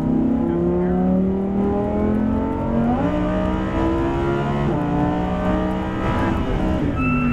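Lamborghini Huracan LP610-4's naturally aspirated V10 pulling hard under full throttle down a straight, its note climbing in pitch with a sudden change about three seconds in and again near five seconds, as it shifts through the gears.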